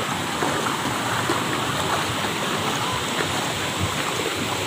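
Steady rush and splash of pool water, without a break.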